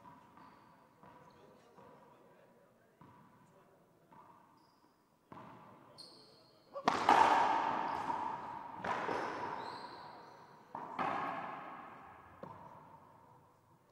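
A racquetball bounced on a hardwood court floor several times, softly, before the serve. Then a few hard cracks of racquet striking ball and ball striking wall, about two seconds apart, the first the loudest, each ringing out in the enclosed court, with brief shoe squeaks.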